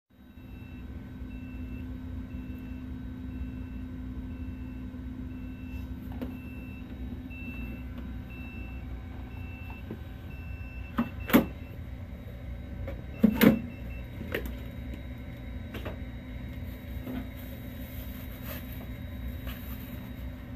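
Mutoh ValueJet 628 wide-format inkjet printer humming steadily, with a faint high tone pulsing about once a second for the first two-thirds. Around the middle come a few sharp plastic clicks and knocks as its bulk-ink cartridges are handled, the loudest two close together.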